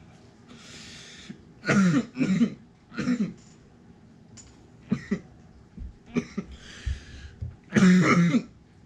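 A man coughing hard and repeatedly after inhaling a dab hit from a vaporizer. There are several harsh coughs with long breathy exhales between them, and the loudest cough comes near the end.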